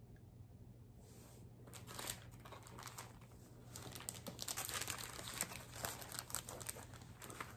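Plastic packaging crinkling as it is handled. It starts about a second in and gets busier toward the middle and later part.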